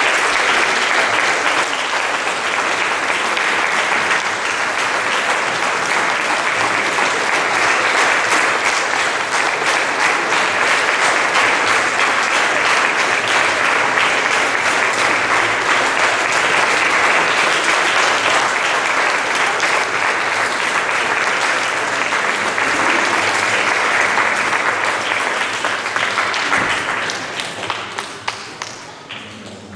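Congregation applauding steadily, the clapping dying away about four seconds before the end, with a few last scattered claps.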